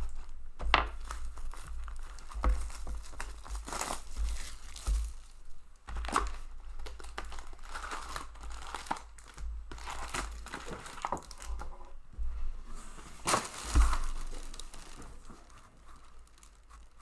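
Hockey card hobby box being opened by hand: its plastic wrap torn, the cardboard lid lifted and the foil-wrapped packs pulled out and stacked, crinkling and rustling in irregular bursts with sharp clicks. The rustling dies down near the end.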